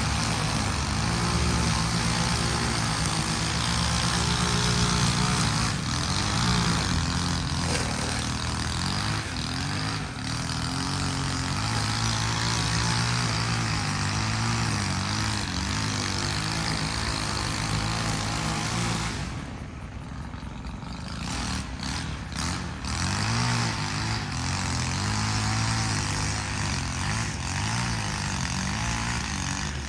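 Gas string trimmer engine running at high throttle, its pitch wavering as the throttle is worked. About nineteen seconds in the engine drops briefly, then picks up again.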